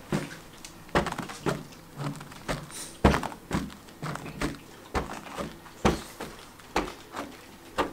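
Dual-action polisher with a foam pad working polish over car paint: a faint steady motor hum under a string of uneven knocks, roughly one every half second to a second.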